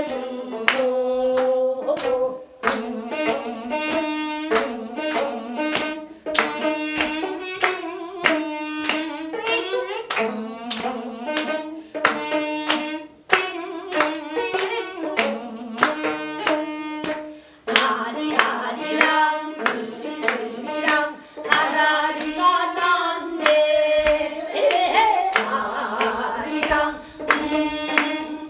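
Gayageum byeongchang: a Korean traditional singer's voice, held and wavering on long notes, over quick, sharply plucked gayageum strings.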